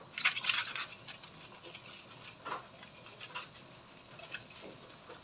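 Plastic cling wrap crinkling as hands stretch and press it down over a dish, a dense crackle in the first second, then scattered faint crackles.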